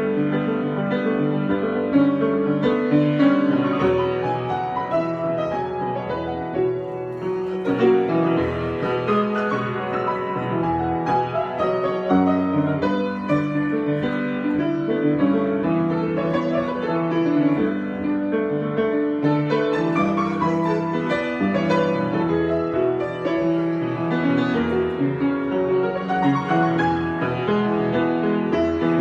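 Solo piano improvisation, played continuously with many notes sounding together.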